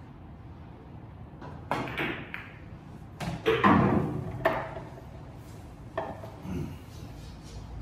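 A 9-ball pool shot: the cue tip strikes the cue ball with a sharp click about two seconds in, then the balls clack against each other, and the loudest knocking comes as an object ball drops into a pocket. A few lighter knocks of balls follow near the end.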